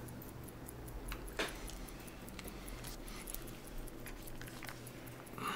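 Faint small metallic clicks and taps of tweezers handling tiny watch parts as a spring is brought into a watch movement, over a steady low hum.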